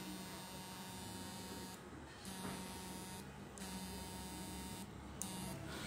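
Homemade 1000 W analog transistor inverter of an electric fish-shocking machine, with its transformer, humming steadily while it lights a tube lamp under load. The hum cuts out briefly about three times.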